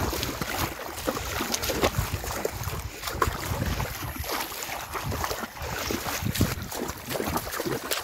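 Water sloshing and splashing as legs wade through a shallow, flowing river, with irregular rustling and a low rumble of wind and handling noise on the microphone.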